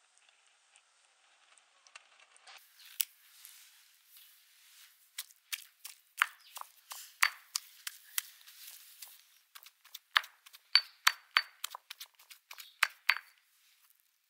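Speckled stone pestle pounding raw boneless chicken in a black stone mortar: irregular sharp knocks and clinks of stone on stone, starting about three seconds in and coming thicker and louder near the end.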